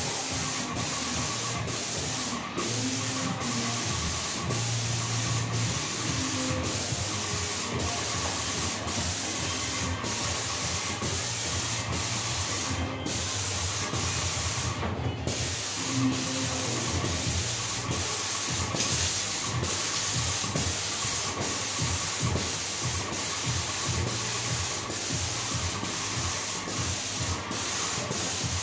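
Wagner 321 airless paint sprayer running, its gun spraying paint onto a wall in a steady hiss with a regular pulse about twice a second and a few short breaks.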